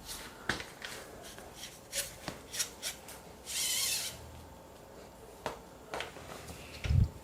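Hands working a road bike's shift cable and shifter while lubricating it: scattered small clicks, taps and rubbing. A short hiss comes about halfway through, and a low thump near the end is the loudest sound.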